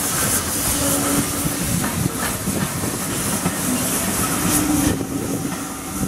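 1878-built LB&SCR Stroudley A1X 'Terrier' 0-6-0T steam tank locomotive No. W11 'Newport' running past with its coaches: steam hissing and the train running on the rails, a steady loud sound throughout.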